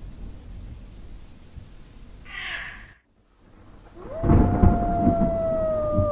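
A long, slowly falling howl over a low rumble. A short hiss comes about two and a half seconds in, then a brief silence. The howl starts again about four seconds in.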